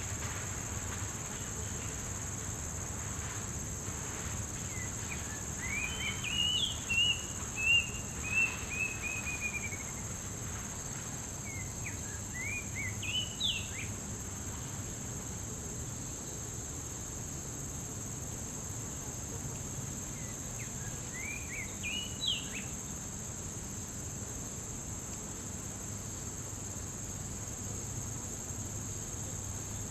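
Oriental magpie-robin singing in three short bursts of clear whistled phrases, the first the longest, over a steady high-pitched insect drone.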